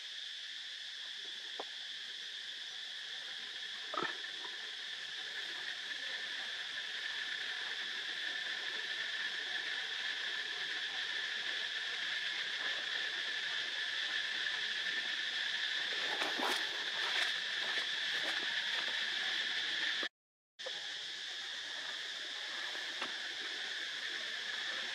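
Steady insect chorus, a continuous high-pitched drone that breaks off briefly about twenty seconds in, with a few faint clicks.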